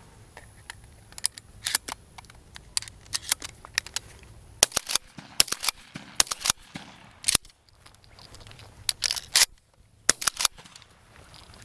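A series of sharp clicks and clacks in irregular clusters, several a second at times, from a shotgun being handled.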